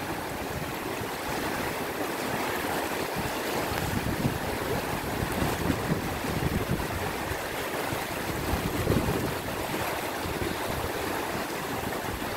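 Swift, swollen river rushing past the bank, a steady broad hiss of moving water, with wind gusting irregularly on the microphone.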